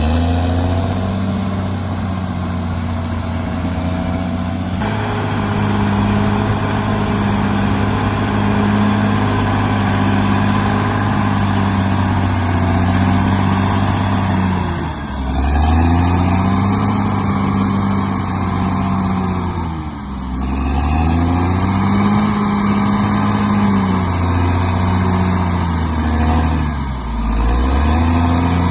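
Bulldozer's diesel engine running steadily, its pitch briefly dropping and recovering three times in the second half.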